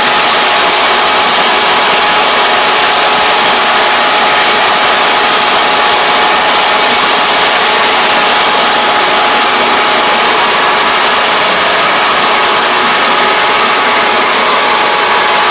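Kubota ER470 combine harvester running steadily while cutting rice: a loud, even machine noise with a steady high whine over it.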